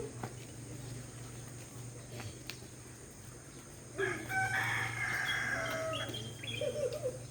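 A rooster crowing once, starting about four seconds in and lasting nearly three seconds, over a steady low hum.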